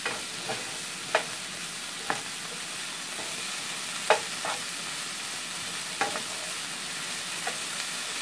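Broccoli florets sizzling in oil in a nonstick frying pan while a wooden spoon stirs them, knocking against the pan every second or so, the sharpest knock about four seconds in.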